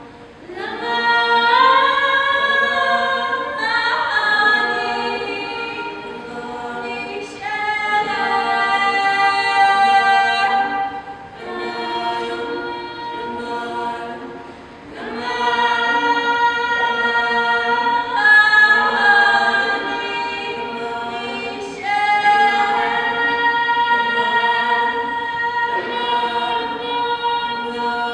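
A small group of women singing a cappella together, holding long notes in several voices at once, in phrases broken by short pauses.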